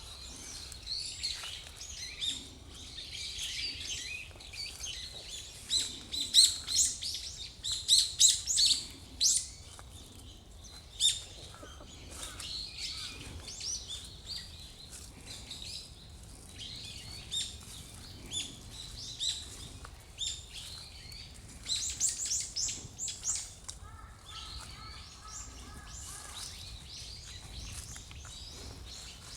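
Brown-eared bulbul giving repeated sharp, high-pitched alarm calls, which the recorder calls an 'earthquake alarm' call. The calls come loudest in two dense bursts, about a quarter of the way in and again about three-quarters of the way in.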